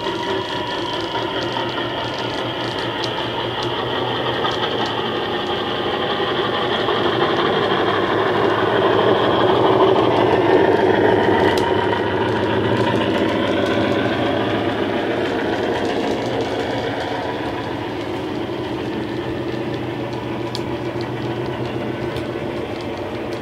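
Hornby model Class 50 diesel locomotive's DCC sound decoder playing a Legomanbiffo Class 50 engine sound file through a large EM2 speaker, with the engine running steadily under load. It grows louder as the loco passes close by, loudest about ten seconds in, then fades as the train moves away.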